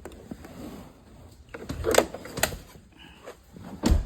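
A few sharp knocks and clicks of interior trim parts being handled and set down, the loudest near the end.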